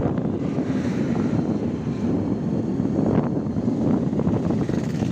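Wind buffeting the microphone on a moving motorcycle, over steady engine and road noise.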